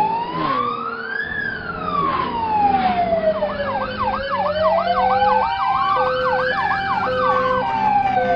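Emergency vehicle sirens: a slow wail rising and falling twice, joined about three and a half seconds in by a fast yelping siren and an on-off steady beeping tone.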